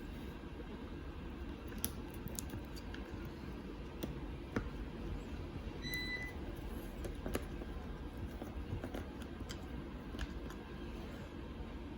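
A few light clicks and handling noises over a steady low hum, with one short high beep about six seconds in.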